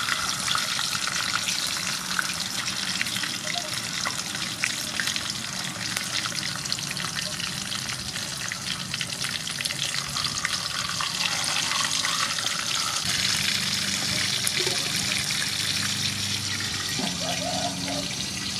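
Two whole fish frying in hot soybean oil in an aluminium wok, with hot oil ladled over them: a steady sizzle full of fine crackling.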